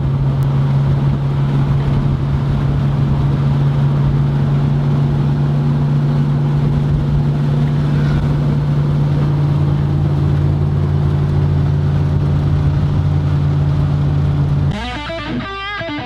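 Intro music: a steady, loud, low distorted drone that holds one pitch, then an electric guitar riff cuts in near the end.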